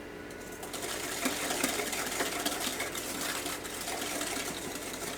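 Wet muffin batter being mixed briskly in a bowl, the utensil ticking and scraping rapidly against the bowl.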